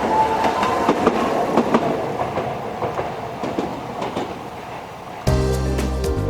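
Toden Arakawa Line tram passing over a level crossing, its wheels clicking over rail joints, with a faint whine rising slightly in pitch in the first second. Music cuts in abruptly about five seconds in.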